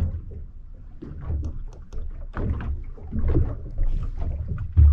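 Water lapping and slapping against the hull of a small anchored boat, in uneven low swells with faint knocks.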